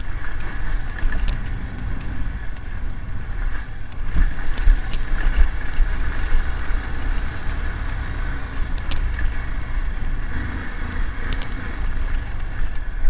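Honda MSX 125 motorcycle riding along a bumpy dirt track. Its single-cylinder engine runs steadily under heavy wind rumble on the handlebar camera's microphone, with a few sharp clicks and rattles from the bike jolting over ruts.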